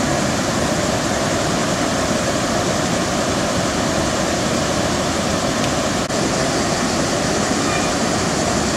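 River water pouring over a low weir and churning through rapids: a steady, loud rush, with a brief dip at a cut about six seconds in.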